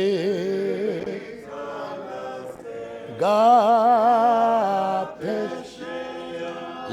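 A single voice singing a slow hymn-like song unaccompanied, drawing out long held notes with a wavering vibrato. The loudest phrase swells in about three seconds in and is held for over a second before fading.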